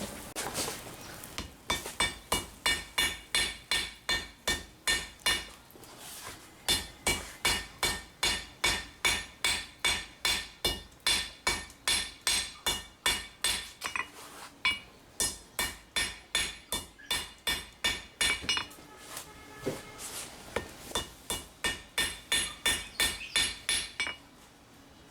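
Blacksmith's hammer striking steel on an anvil, about two to three ringing blows a second, in four runs with short pauses between them.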